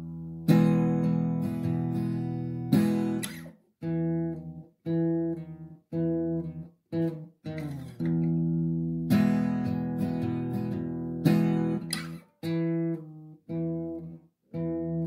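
Instrumental break played on a strummed acoustic guitar. Long ringing chords alternate with short chords that are cut off abruptly, leaving brief silences between them.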